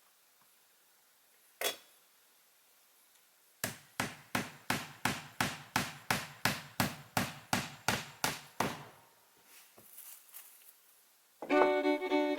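Hammering: a single knock, then a steady run of about fifteen hammer blows at about three a second, which stops abruptly. Near the end, bluegrass music with fiddle comes in.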